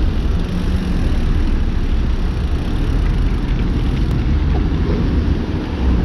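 Steady low rumble of city traffic and wind on the microphone, heard from a bicycle riding between cars.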